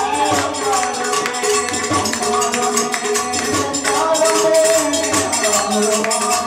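Upbeat dance music with a wavering melody over a steady, regular beat and sharp high percussion strokes, played live through an amplifier.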